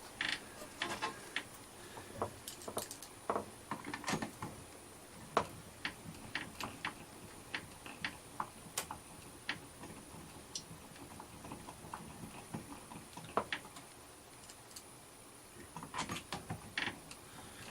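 Irregular small clicks and taps of screws, a driver and the RV door lock's handle parts being worked by hand while the lock is fitted to the door.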